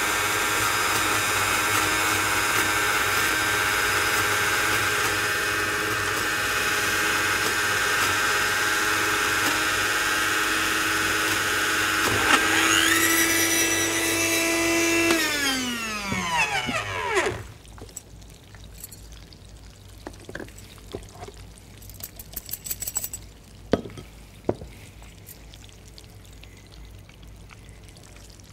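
Electric blender running steadily as it purées ripe mango with Thai ginger, lemongrass and the other sauce ingredients; its pitch rises slightly about twelve seconds in. It is switched off about halfway through and winds down with a falling whine, followed by a few light knocks and clicks.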